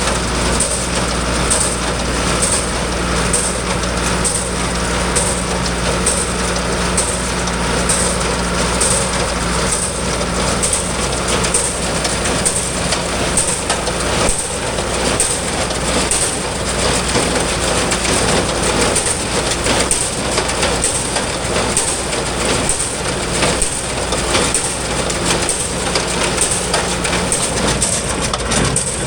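Small old square hay baler running, its plunger packing straw and alfalfa in a steady, regular rhythm over the drone of the engine driving it.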